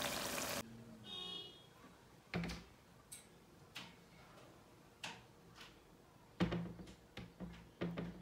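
Curry sizzling in the pan, cut off abruptly about half a second in. Then a brief ringing tone, followed by scattered light knocks and clicks of dishes being handled, about a dozen, with two stronger thuds about two and six seconds in.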